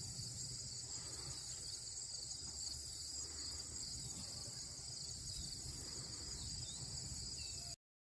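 Steady, high-pitched chorus of insects singing, with a low rumble underneath; it cuts off suddenly near the end.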